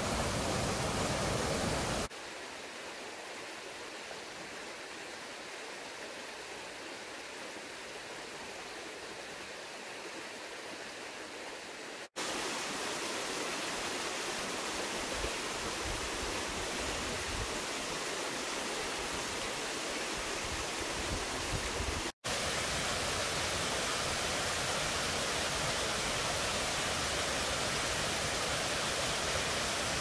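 Steady rush of water from a rocky mountain stream with small cascades and waterfalls. It is heard over several cut-together shots, so the level jumps abruptly: quieter a couple of seconds in, louder again a little before halfway, with a short dropout about two-thirds of the way through.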